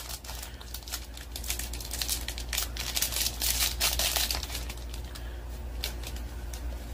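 A thin clear plastic bag crinkling and crackling as hands open it and slide out a stack of trading cards. The crackling is densest in the middle and thins out near the end.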